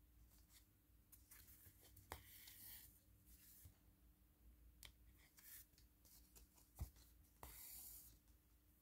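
Near silence with faint scratching and rubbing and a few light clicks, the small sounds of hands working on a craft canvas at a table.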